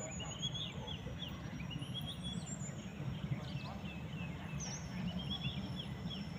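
Birds chirping in short arched phrases, repeated every second or so, over a steady low rumble and a thin high whine.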